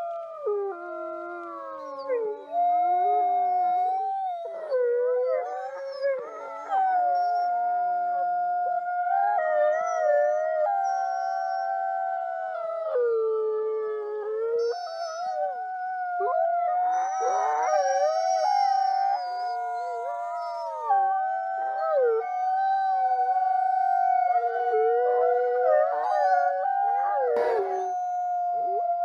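Wolves howling in chorus: several overlapping long howls, one held steady on a single pitch while others slide up and down around it.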